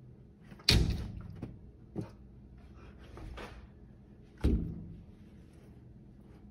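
A dog bumping against a sliding glass door while going after a fly on the pane: two sharp thumps, less than a second in and about four and a half seconds in, each ringing briefly in the glass, with a lighter knock between them.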